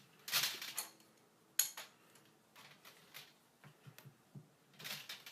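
Wrench tightening a flare nut onto a valve fitting: scattered metallic clinks and scrapes, with the loudest rasping clatter about half a second in, a sharp click near the second mark, and another clatter near the end.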